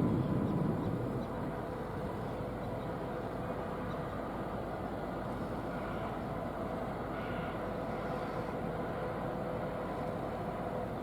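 Steady drone of a large cruise ship's machinery as she passes close by, a low rumble with a constant hum running over it. There is a brief louder low buffet at the very start.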